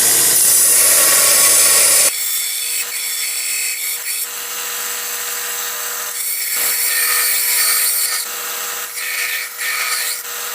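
Power grinder grinding the steel of a forged railroad-spike knife: a loud, steady rasp of metal on abrasive. About two seconds in, the sound changes abruptly to a steady motor hum with lighter grinding that comes and goes.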